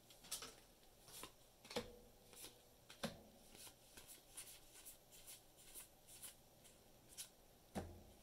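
Faint, irregular soft clicks and slides of Magic: The Gathering trading cards being flipped through one at a time in the hands.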